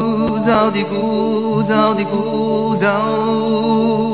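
Background music: a melody line bending and gliding between long held notes over a steady sustained accompaniment.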